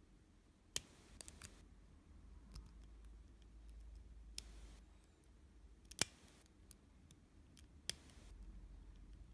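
Lock pick and tension tool working in a stainless steel padlock: scattered sharp metallic clicks, the loudest about a second in and near the middle, with short scratchy scrapes of the pick in the keyway as the pins are set.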